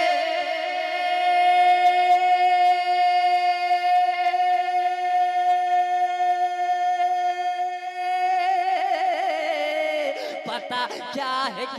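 A male naat singer's solo voice holding one long, steady note of a manqabat (Urdu devotional praise song), then breaking into quick wavering vocal ornaments about eight seconds in.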